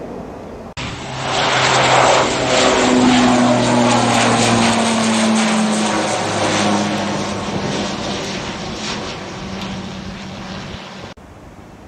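Saab 2000 twin-turboprop airliner climbing out low overhead, its propellers giving a loud, steady hum. The pitch drops as it passes, and the sound fades away over the next several seconds.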